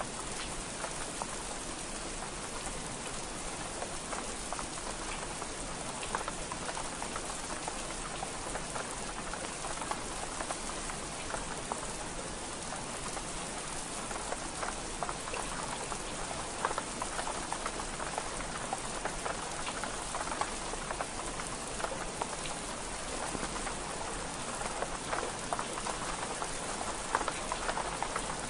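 Steady rain on window glass: a dense, even patter of drops with many small sharp ticks.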